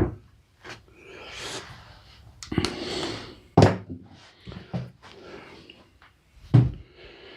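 Plastic mower housing knocking and scraping as it is tugged and worked against the frame, with a series of sharp clunks, the loudest about three and a half seconds in.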